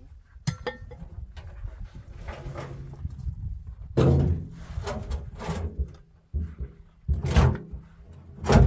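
Irregular heavy knocks and thuds of building work, about half a dozen, the loudest about four seconds in and near the end.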